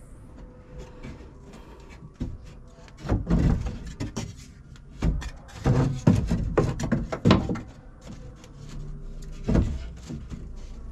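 Plywood pieces knocking and bumping as a wooden rack is fitted up against the ceiling of a bare metal van body: a string of irregular thuds and knocks, heaviest in the middle and once more near the end.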